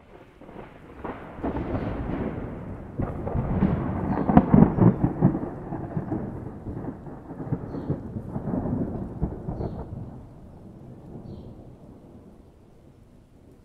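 A long rolling thunder rumble. It comes in abruptly, builds to its loudest about four to five seconds in, swells again around eight seconds, then dies away.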